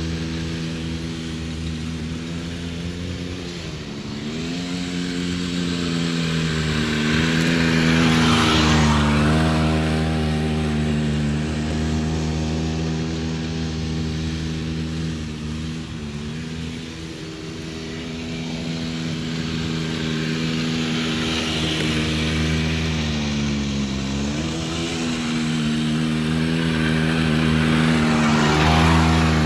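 Small 90cc two-stroke ATV engine running under riding load. Its pitch dips and climbs again as the throttle is eased and reopened, and it grows loudest as the quad passes close, about eight seconds in and again near the end.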